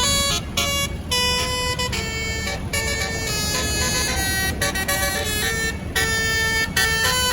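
Tour bus's basuri (telolet) horn playing a tune, note after note with short breaks, over a steady low rumble.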